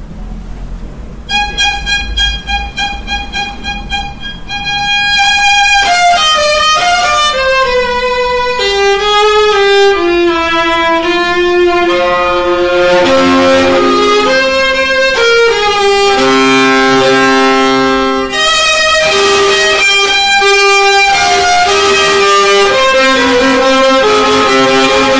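Solo violin played with the bow. It starts about a second in with a high note repeated in quick short strokes, then descends step by step into a slower melody of held notes on the lower strings.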